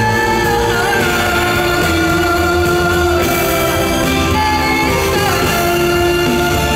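Live pop ballad in concert: a woman's voice holding long sung notes that glide between pitches, over a full band.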